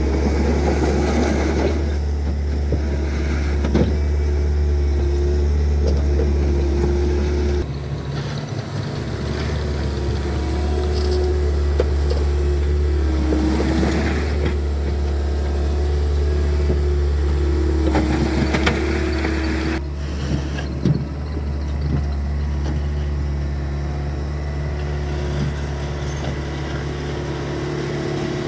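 Bobcat compact track loader's diesel engine running steadily with a hydraulic whine as the bucket pushes crusher run gravel, with several bursts of gravel scraping under the bucket.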